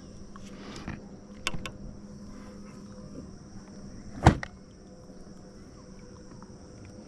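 A few light clicks, then one sharp knock about four seconds in, over a steady high drone of insects.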